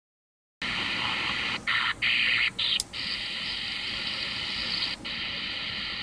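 Static hiss from a Stryker SR-955HP radio's speaker, receiving on the 11-meter band. A few seconds in, it swells into three louder stretches of hiss with brief cut-outs between them and a sharp click, then settles back to a steady hiss.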